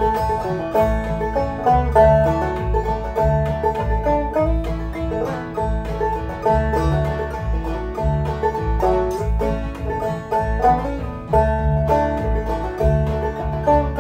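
Clawhammer five-string banjo played on a Deering Vega Little Wonder, a steady stream of plucked notes in the key of A, over a computer-generated Band-In-A-Box backing track with a pulsing bass line.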